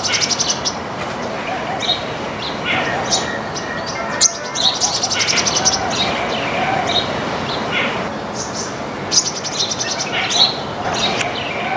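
A flock of small birds chirping steadily, with short high chirps overlapping one another and three bursts of fast, rattling chatter, near the start, around five seconds in, and around nine seconds in.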